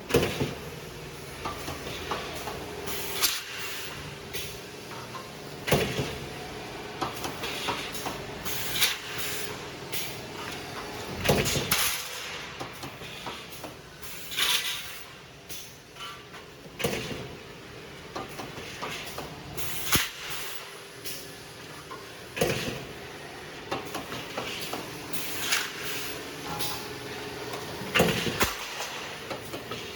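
Roll forming machine for L-shaped profiles running, with a sharp clank about every three seconds over steady machine noise.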